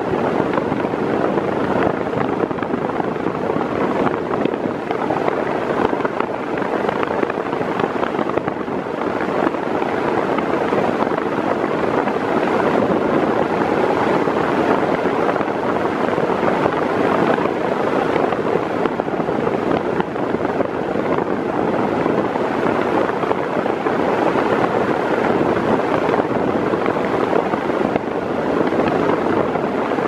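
Mondial Turbo Silêncio 40 cm 140 W fan running at top speed: a steady, even rush of moving air.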